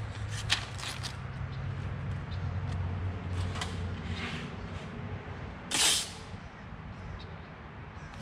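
Masking tape being torn and pulled off the roll, with a few short rips in the first half and one longer, louder rip about six seconds in.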